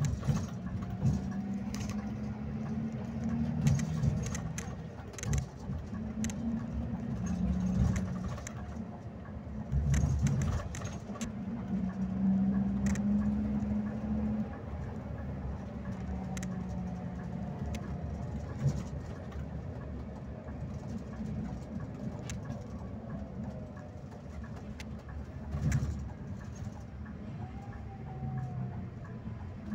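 Scania coach driving at night, heard from the front of the cabin. Its engine and road noise make a steady low drone that swells and fades, with scattered clicks and knocks of body rattle.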